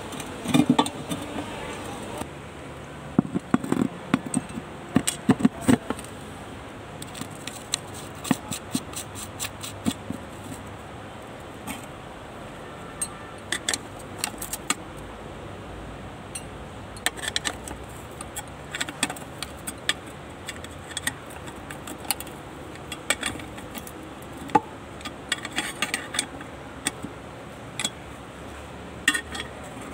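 Scattered sharp clicks and light clinks, with a cluster of heavier knocks in the first six seconds.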